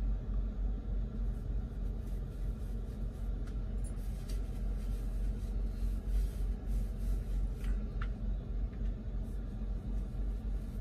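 Steady low rumble of the semi truck's diesel engine running, heard from inside the sleeper cab, with a couple of faint rustles of clothing as socks are pulled on.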